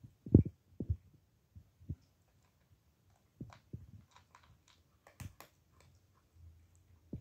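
A cat eating dry kibble from a plastic bowl: irregular crunches and sharp clicks, with a few low knocks, the loudest about half a second in.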